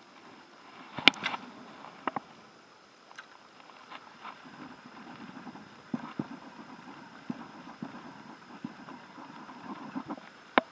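Spinning reel being wound in on a lure retrieve: a soft, low whir with small irregular ticks, after a sharp click about a second in.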